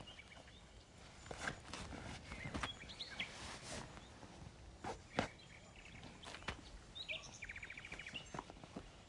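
Outdoor background with birds chirping, including a short rapid trill near the end, over scattered knocks and steps. A sharp knock about five seconds in is the loudest sound.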